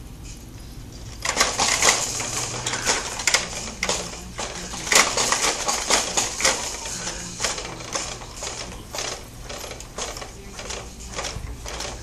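Baby jumperoo being bounced in: a fast, irregular clatter of plastic clicks and rattles from the seat, frame and toy attachments, starting about a second in.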